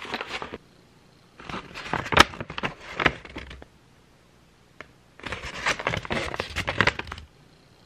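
A stiff paper scroll crinkling and rustling as it is handled and held up, in three bouts with short quiet gaps between.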